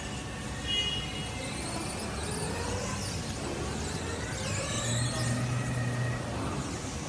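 Walk-behind electric pallet stacker driving across a concrete floor: the electric drive motor whines steadily as the wheels roll, with a low hum that comes in for a second or two near the end.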